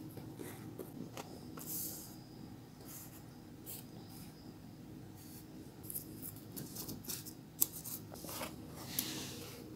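Faint rustling and light brushing of a hand laying celosia leaves on a book's paper pages and smoothing them flat, with scattered short scrapes and taps that come more often in the second half.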